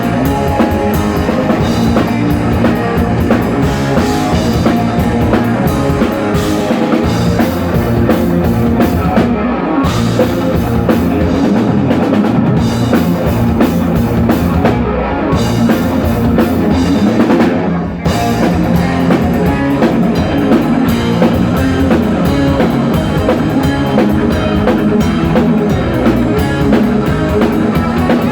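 Heavy metal band playing a song live: a pounding drum kit under electric guitars, with a brief break about two-thirds of the way through.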